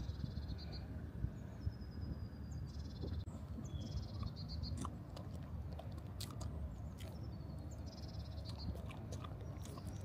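A dog chewing and crunching, with short clicking bites, over a low rumbling background. Birds sing short high trills now and then.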